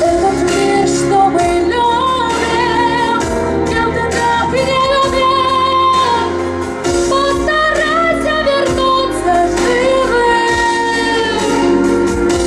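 A woman singing a song over instrumental accompaniment, holding long notes with vibrato.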